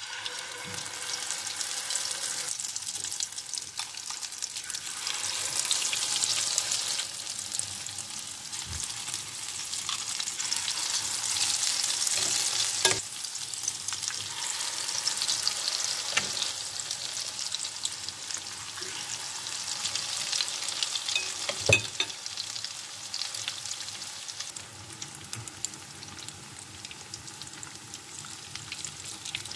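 Zucchini fritter batter sizzling in hot frying oil in a pan, starting as the first spoonful goes in and easing somewhat near the end. Two sharp clicks stand out, one near the middle and one about two-thirds through.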